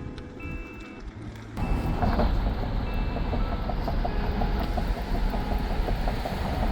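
A motor vehicle running, heard as a steady low rumble with road or wind noise and a light, rapid ticking. It starts suddenly about a second and a half in, after a quieter stretch with faint steady tones.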